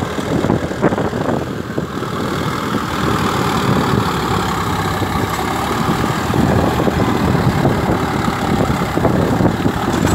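Kartar 5036 tractor's 50 hp Kirloskar diesel engine running steadily under load while pulling a tine cultivator through dry, hard soil, getting a little louder about three seconds in.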